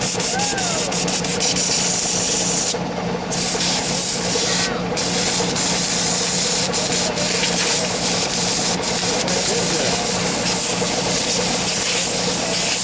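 Steady rough scraping and rubbing as caked grime is cleaned off the concrete mixer's old engine, with scattered small clicks and a constant low hum underneath.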